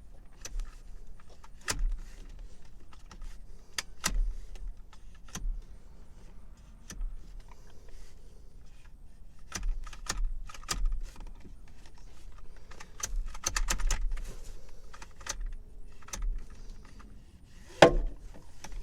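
Seatbelt retractor being worked by hand to free its locked belt: irregular sharp metallic clicks and rattles, a quick run of clicks about thirteen seconds in, and a loud knock near the end. The retractor's lock is stubborn and won't let the belt go.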